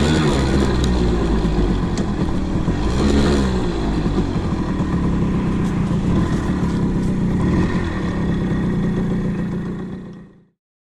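Hercules moped's Sachs 506/4 AKF two-stroke engine running on a ride, its pitch rising and falling as it revs; the sound stops abruptly near the end.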